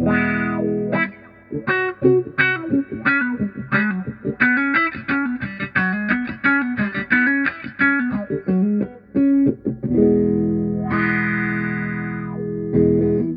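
Electric guitar played through a Vox 846 hand-wired wah pedal: a strummed chord, then a quick run of single picked notes, then held chords near the end.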